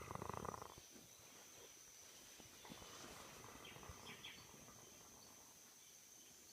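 A person snoring: a snore ending about a second in, followed by near quiet with a faint steady high-pitched whine.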